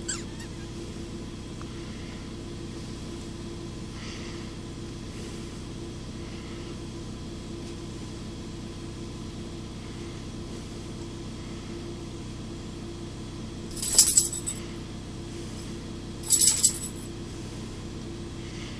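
Steady low hum, with two brief metallic jingles near the end, about two and a half seconds apart: a small dog's collar tags jingling as it shifts about while its belly is rubbed.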